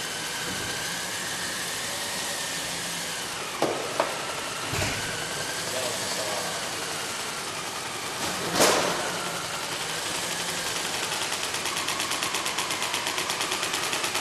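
Street-performance robot's extending-leg mechanism running, a steady motor hum with a faint whine that shifts in pitch. There are two sharp clicks about a third of the way in, a dull thud just after, and a louder knock about halfway. A fast, even rattle starts about two-thirds of the way in and grows louder near the end.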